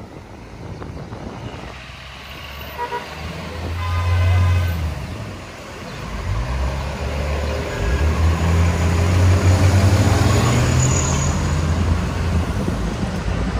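A vehicle horn sounds in heavy street traffic: a short toot about three seconds in, then a longer blast of about a second. Under it a heavy engine rumbles close by, rising slightly in pitch through the second half.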